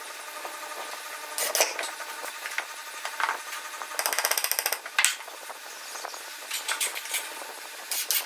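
Woodworking tool noises: wood scraping and rubbing with scattered knocks, and a quick rattling run of strokes about four seconds in.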